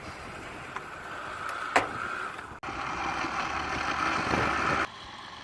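Vacuum cleaner motor running at a lower level, its hum stopping and restarting abruptly, with one sharp click nearly two seconds in.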